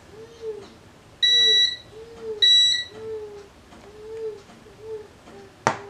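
HABOTEST handheld gas leak detector beeping twice: two loud, steady, high electronic beeps of about half a second each, a second apart. Softer low warbling tones repeat about every half second, and a sharp click comes near the end.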